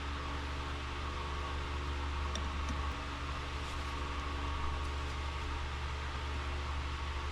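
Steady machine hum and hiss, with a few faint light clicks about two and a half seconds in.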